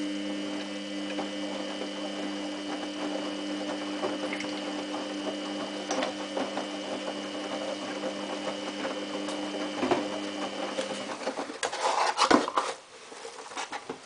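Samsung WF8804RP front-loading washing machine tumbling its load in the wash: the drum motor hums steadily over the patter and slosh of wet laundry in the drum, then stops about eleven seconds in. Soon after comes a short, loud burst of knocking and rustling close by.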